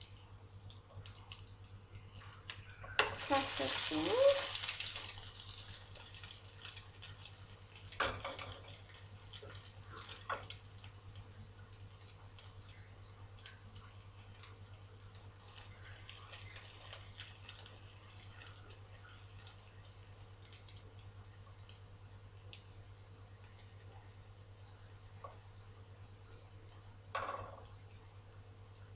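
Oil sizzling in a frying pan, with a louder burst of sizzling about three seconds in. A few sharp clinks of a spoon follow, about eight, ten and twenty-seven seconds in.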